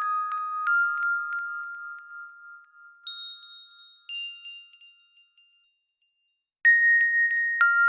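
Huawei EMUI 11 ringtones: a melody of clear, bell-like chime notes rings out and fades away, with two last higher notes. After a second of silence, another chime ringtone starts abruptly near the end.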